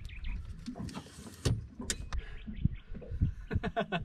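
Folding camp table with a plastic top and metal legs being unfolded and set up: a run of irregular knocks and clicks from its frame and legs, with a few short squeaks near the end.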